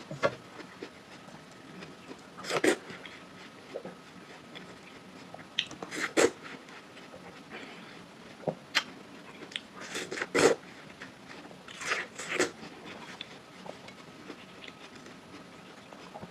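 Close-up bites and chewing of juicy watermelon: about eight short, crisp crunches a few seconds apart, some in quick pairs.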